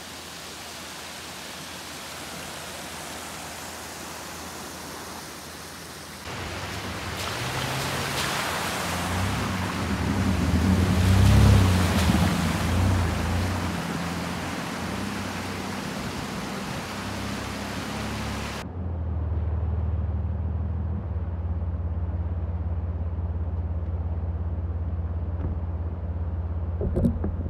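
Off-road 4x4 driving on a dirt trail: an engine running under a steady rush of tyre and wind noise that swells to its loudest about halfway through. About two-thirds of the way in the rush stops abruptly, leaving a steady low engine hum.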